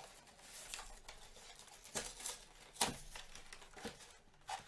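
Packaging of a Pokémon trading-card collection box being handled: crinkling and rustling, with a couple of sharp clicks about two and three seconds in.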